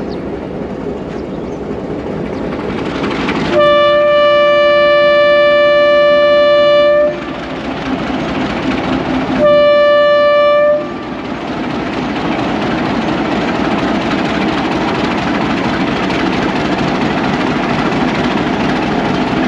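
Hitachi-built PHA-20 diesel locomotive sounding its departure horn: one long steady blast of about three seconds, then a shorter blast a couple of seconds later. Its diesel engine runs louder as the train pulls away slowly.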